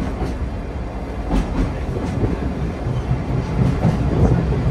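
Sagano Romantic Train's open-air carriage rolling along the track: a steady rumble of wheels on rails with a few sharp clicks from the rail joints.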